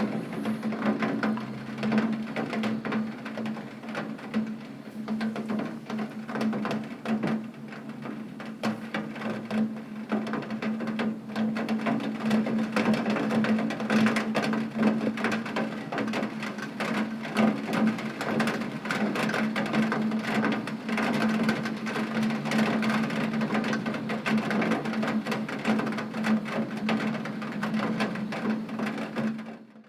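Heavy rain hitting window glass: a dense, continuous patter of countless drop impacts, with a steady low hum underneath.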